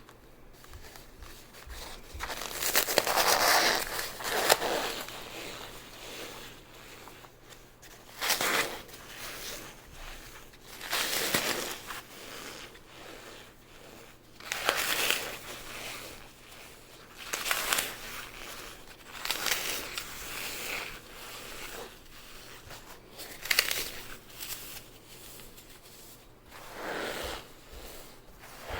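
Dry floral foam dusted with cornstarch being squeezed and crushed by hand, giving squeaky crunches in a series of separate squeezes, each a second or two long, about every three seconds.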